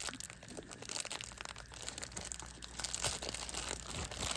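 Packaging of a toy accessory packet crinkling and crackling as it is handled and opened, a dense run of irregular small crackles.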